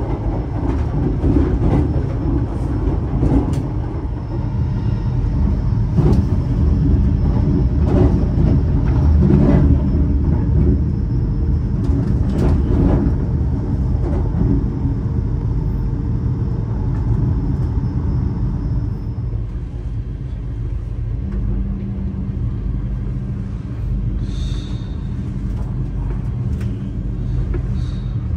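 Interior running noise of an LNER Azuma (Class 800 bi-mode) train at speed, heard in the vestibule by the doors: a steady low rumble of wheels on rail. Scattered clicks and knocks from the track come through in the first half. A steady low hum joins in about three-quarters of the way through.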